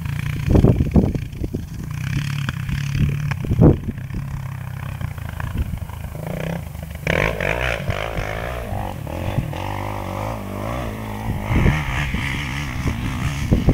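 Off-road engine running, its pitch rising and falling from about seven seconds in, with a few thumps on the microphone.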